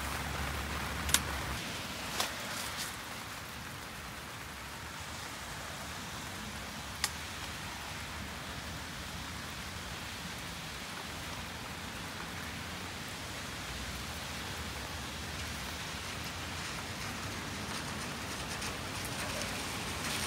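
Steady rain falling on a camping tarp, with a few sharp clicks, the loudest about a second in.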